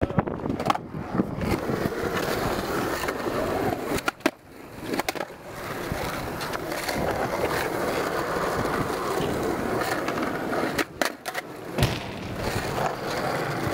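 Skateboard wheels rolling steadily over a smooth skatepark surface, broken by sharp clacks of the board, a cluster about four seconds in and another about eleven seconds in.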